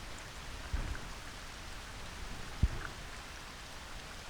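Steady light rain pattering, with scattered drop ticks. Two dull low thumps stand out, a soft one just under a second in and a sharper, louder one about two and a half seconds in.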